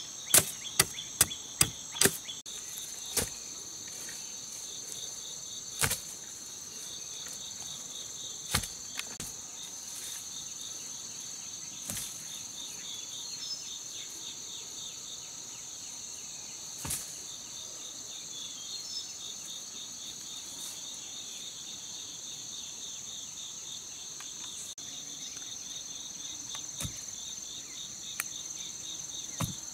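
A machete chops into a sapling's trunk, five quick sharp strokes in the first two seconds. After that, single wooden knocks come every few seconds as poles are handled. Under it all runs a steady chorus of insects chirping, with a fast pulsing trill.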